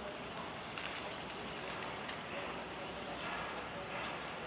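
Four short, high-pitched rising chirps from a small animal, about a second apart, over a steady hiss of outdoor background.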